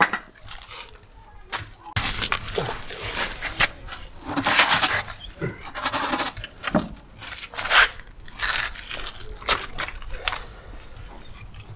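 Irregular clatter of metal tools and car parts during hands-on repair work: sharp knocks and clicks mixed with scraping, in uneven bursts.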